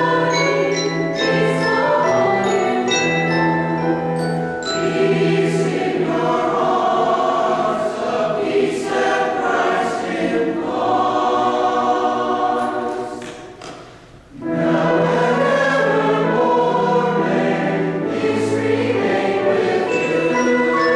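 Mixed choir singing with piano accompaniment, bright struck notes in the first few seconds. The music thins out briefly about two-thirds of the way through, then the choir comes back in at full strength.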